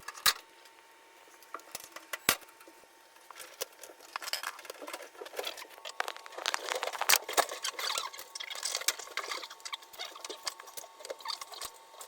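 Scattered light clicks, taps and rattles of small hard parts being handled, with two sharper clicks in the first few seconds and a faint steady tone underneath.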